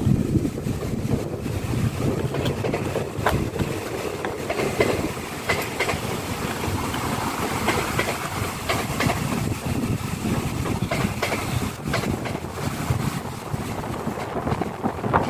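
TransPennine Express Class 397 electric multiple unit running past, a steady rumble, with wind buffeting the microphone.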